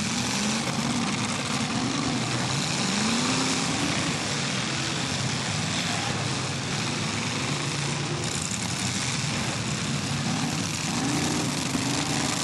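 Several demolition derby cars' engines revving hard at once, their pitch climbing and falling again and again over a constant din of engine noise.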